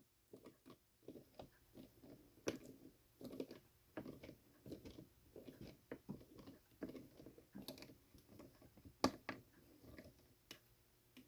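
Faint, irregular clicks and scrapes of a small washer screw being started and driven by hand with a screwdriver into a model stand's support, with a sharper click about nine seconds in.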